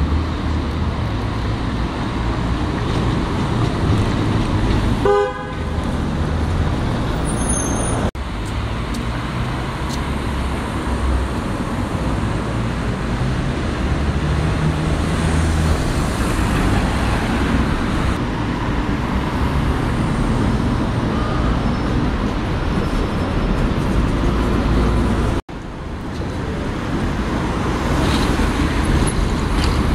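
City-centre road traffic: diesel buses and cars passing and pulling away, engines rumbling steadily. A short horn toot sounds about five seconds in.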